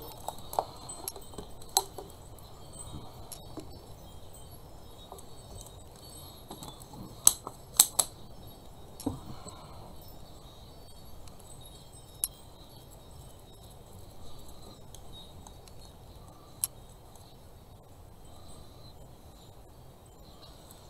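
Scattered light clinks and taps as a small clear cup of paint and other craft items are handled and set down on a hard work surface. There are about eight separate knocks, the loudest three close together about halfway through.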